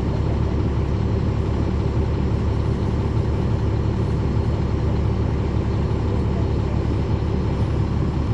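Caterpillar C13 ACERT diesel engine of a NABI 40-foot transit bus running steadily at an even, unchanging pitch, heard from the rear seats inside the bus.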